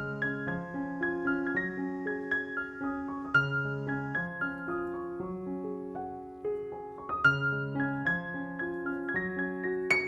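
Background music: a gentle solo piano piece, one note after another over held lower notes.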